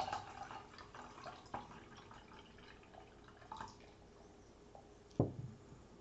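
Liquid poured from a drinking glass into a stainless steel saucepan, splashing at first and then dripping. A single sharp knock about five seconds in as the glass is set down on the table.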